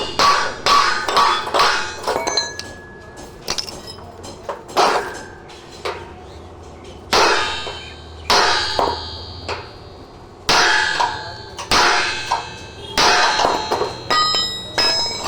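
Hammer striking metal: a quick run of blows at first, then slower single strikes that leave a ringing clang.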